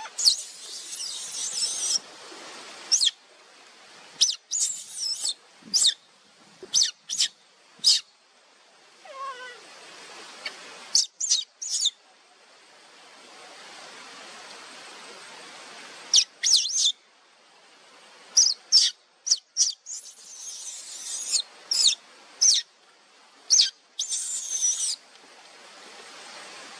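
A baby macaque's calls: many short, high-pitched squeaks in irregular clusters, broken by a few longer shrill cries.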